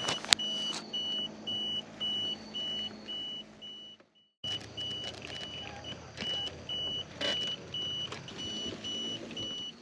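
Electric actuator legs of an EZ Lift truck-topper lift running as they lower the topper, with a short high beep repeating about twice a second. The sound cuts out briefly near the middle, then carries on.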